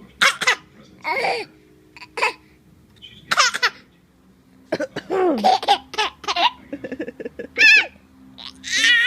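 Baby laughing in repeated bursts, with high-pitched squealing laughs near the end, between a few short coughs that set the laughter off.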